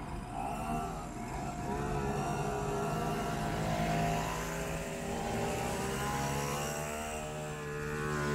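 Small moped and cyclemotor engines buzzing past one after another, several at once, their pitches rising and falling as each rider pulls away and passes.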